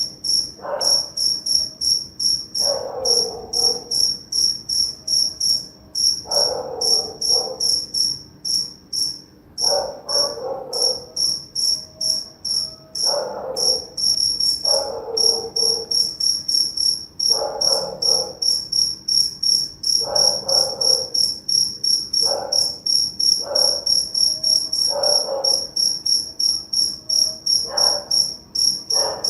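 Crickets chirping in a steady high-pitched pulse, about three chirps a second, with a dog barking repeatedly over them every second or two.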